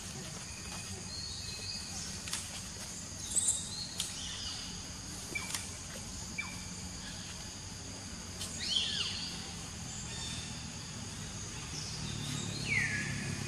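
Outdoor ambience: a steady high insect drone with a few short, downward-sliding bird chirps and scattered faint clicks. A low engine hum builds near the end.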